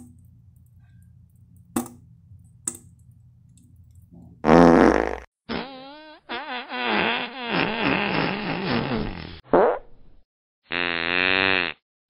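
A string of fart sound effects starting about four seconds in: first a loud short blast, then several long, wavering, pitched farts, a brief one, and near the end a buzzing, fluttering one.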